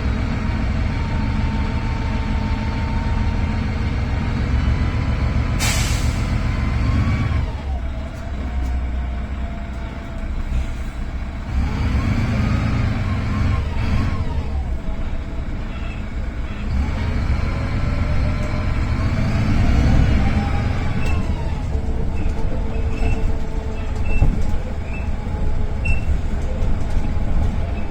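VDL DB250 double-decker bus engine running under load, its turbocharger whistling in thin tones that rise and fall as the bus speeds up and eases off. A short sharp hiss of air about six seconds in, and light regular ticks near the end.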